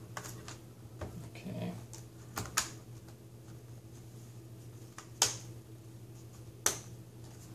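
Light sharp plastic clicks and taps from a laptop LCD panel being handled and set into its display lid, the loudest two about five and six and a half seconds in.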